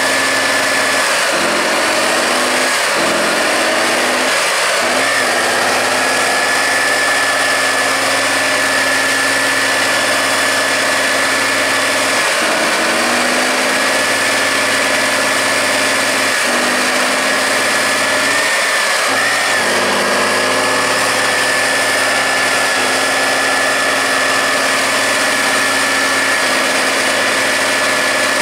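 Heavy off-road trial truck's diesel engine labouring under load as it crawls up a steep dirt slope, its note repeatedly rising as the throttle is opened and falling back. A steady high whine runs under it.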